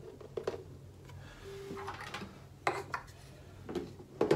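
Clear plastic storage tubs being handled and set down on a table: a few light plastic knocks with rubbing and scraping between them.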